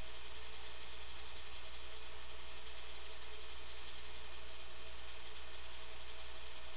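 Steady machine-like hum and hiss with a low drone and a few constant tones, unchanging throughout with no events: the background noise of a silent home-movie transfer.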